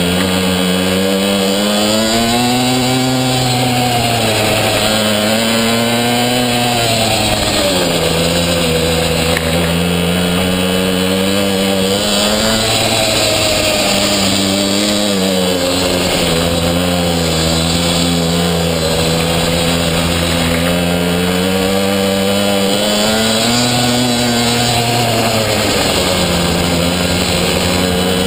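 Small two-stroke pocketbike engine, heard from on the bike, revving up and dropping back again and again, its pitch rising and falling every few seconds as the rider accelerates and lets off through the corners.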